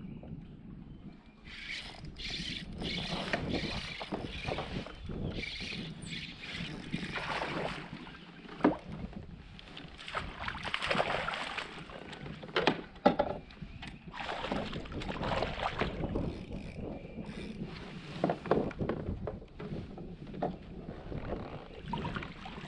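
Water sloshing and splashing against a fishing kayak's hull as a landing net is worked over the side, with scattered sharp knocks and clatter of gear on the plastic boat.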